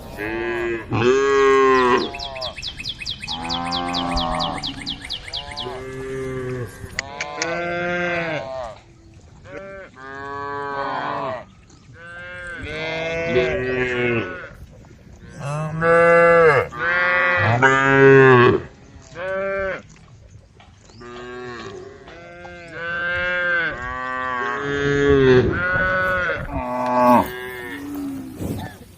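A herd of cattle mooing. Long pitched moos come one after another with short gaps, several cows calling and sometimes overlapping.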